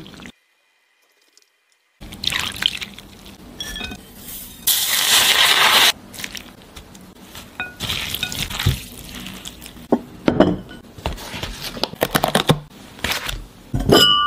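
Kitchen food-preparation sounds in short cuts: water splashing and running, with a steady rush of water about five seconds in, wet mixing of a seaweed salad by hand, and a few ceramic knocks, the last as a ceramic lid is set on a clay pot near the end.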